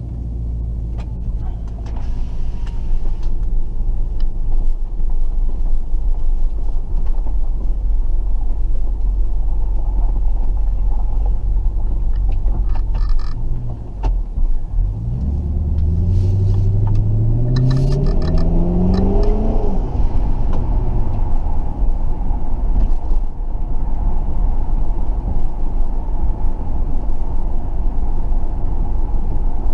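2005 Dodge Magnum being driven: a steady low engine and road rumble, with the engine accelerating about halfway through, its note climbing steadily for several seconds before settling back to an even cruise.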